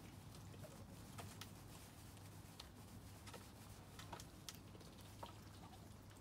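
Faint, irregular ticks and light pattering, a dozen or so scattered sharp clicks over a low steady hum.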